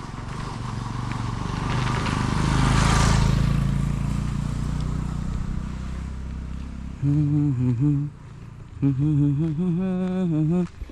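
A motor vehicle drives past, its engine swelling to a peak about three seconds in and then fading away. From about seven seconds in, a man hums a tune.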